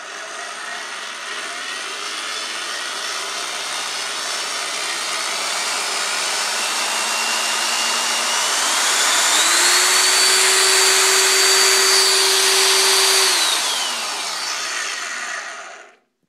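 Chicago Electric half-inch heavy-duty low-speed drill turning an empty three-roller grain mill. Its speed is dialed up so the motor grows steadily louder and its whine climbs in pitch about halfway through. It holds at top speed for a few seconds, then winds back down before the sound cuts off suddenly near the end.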